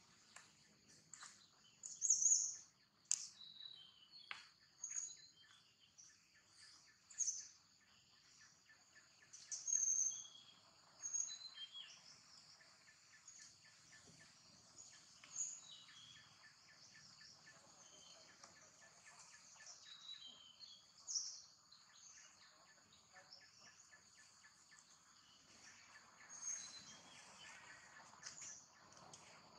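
Steady high insect drone with short high-pitched chirps breaking in every second or few, the loudest about two seconds in, a third of the way through and again past the middle.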